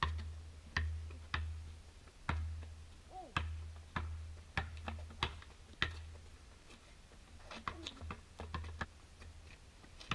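Basketball bouncing on a concrete driveway as it is dribbled: sharp thuds about one every half second to a second, then a short lull and softer, quicker bounces near the end.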